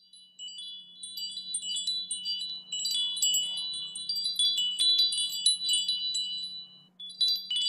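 Chimes tinkling: many short, overlapping high ringing notes with light ticks among them, over a faint steady low hum.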